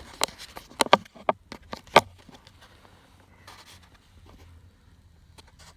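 Handling noise: a quick run of sharp knocks and clicks in the first two seconds, the loudest about a second and two seconds in, then only faint background noise.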